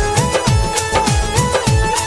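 Instrumental Bhojpuri folk wedding-song music: a fast drum beat of about four low hits a second, each dropping in pitch, under a steady melody line that moves in small steps, with no singing.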